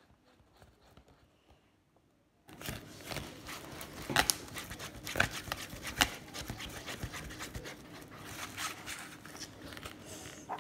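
Glue and laundry detergent being stirred together in a bowl as they thicken into slime: wet, sticky stirring with scattered clicks. It starts suddenly about two and a half seconds in, after near quiet.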